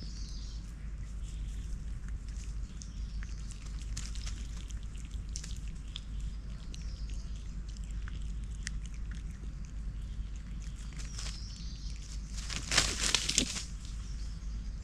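Lemurs moving over dry leaf litter: scattered light rustles and ticks of leaves, with a louder, close rustling crunch of leaves about thirteen seconds in.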